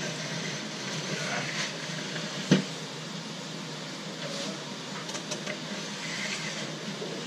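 Hand-held edge banding trimmer scraping along the edge of a plywood sheet in short strokes, shaving off the overhang of iron-on edge banding. A single sharp knock about two and a half seconds in, and a few light ticks later, over a steady low hum.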